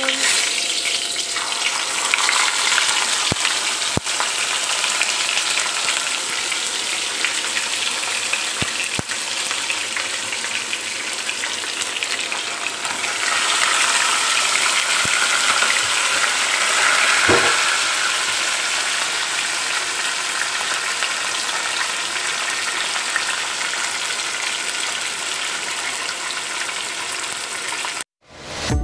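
Whole seasoned fish sizzling as it fries in hot oil in a wok, the sizzle starting abruptly as the fish goes into the oil. It swells louder about halfway through, with a few faint clicks of metal tongs, and cuts off just before the end.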